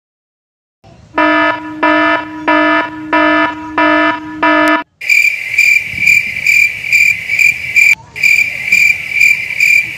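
Dubbed-in electronic sound effects: a buzzy, mid-pitched beep sounds six times, about one every half second, and cuts off sharply. Then a high, even cricket-chirp effect pulses about twice a second.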